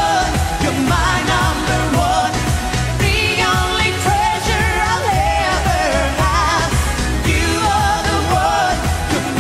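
A woman singing an up-tempo Greek-flavoured pop dance song over a steady beat, her melody lines wavering and ornamented.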